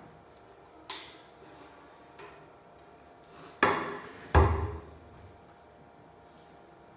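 A small whiteboard being handled and set down: a sharp click about a second in, then two knocks a little after the middle, the second a heavier thud.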